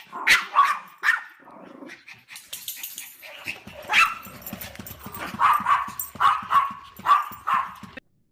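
A dog barking repeatedly, the barks often coming in quick pairs, then cutting off suddenly near the end.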